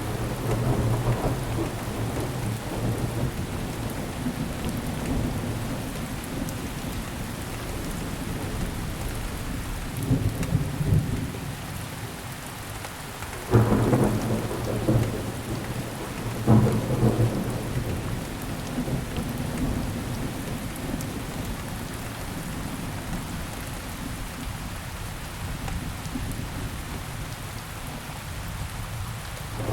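Steady rain falling, with thunder rumbling low underneath. About halfway through come two sudden thunderclaps, about three seconds apart, each rolling away over a couple of seconds.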